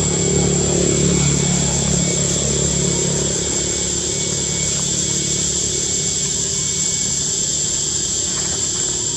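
An engine running steadily, a little louder over the first three seconds, with a constant high-pitched whine above it.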